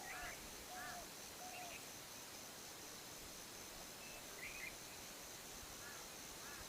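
Quiet outdoor ambience of short, repeated bird calls over a steady high insect drone and soft background hiss.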